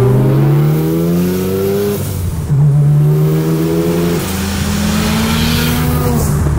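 Mazda FD3S RX-7's 700 hp big-single-turbo 13B rotary engine pulling hard under acceleration. Its pitch climbs steadily, drops sharply about two seconds in, then climbs again more slowly before falling once more near the end.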